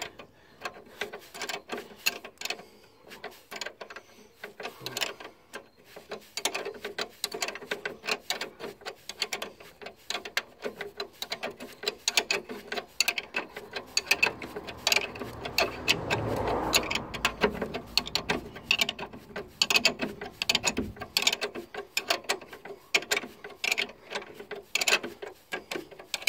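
A ratchet wrench clicking in repeated back-and-forth strokes as it runs a new nylon-insert lock nut down onto a car's stabiliser bar link. A low rumble swells and fades in the middle.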